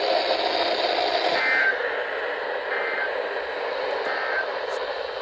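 NOAA Weather Radio EAS end-of-message data bursts: three short, raspy two-tone digital chirps about 1.3 seconds apart, over the steady static hiss of the radio reception. They mark the end of the emergency alert broadcast.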